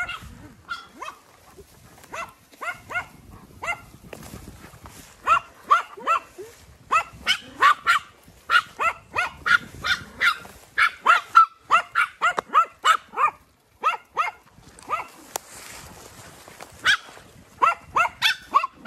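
Small dogs barking in rapid, high-pitched yaps, many a second at times, as they chase and harry a flock of sheep. There is a short lull about three-quarters of the way through before the barking picks up again.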